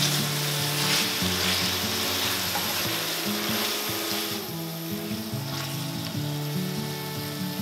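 Chicken livers and chopped onion sizzling in hot oil in a frying pan, stirred and turned with a wooden spatula. The sizzle is strongest at first and weakens somewhat about four and a half seconds in.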